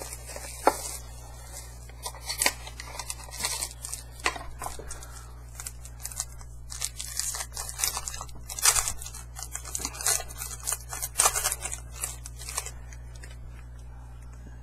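A trading-card pack in its small cardboard mini box being torn open by hand: irregular tearing, crinkling and crackling of card stock and wrapper, busiest in the middle and quieter near the end.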